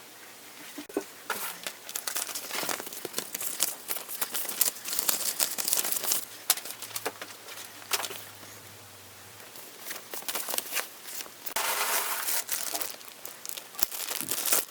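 Packaging being crumpled and rustled by hand, with irregular clicks and knocks of handling and a longer burst of rustling near the end.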